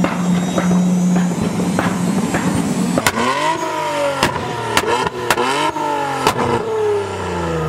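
Infiniti Q60's 3.0-litre twin-turbo V6 (VR30DDTT) is revved up and down several times, with sharp exhaust pops and cracks between the revs from its burble and flame tune. Before that, about the first three seconds hold a steady low drone with light ticking.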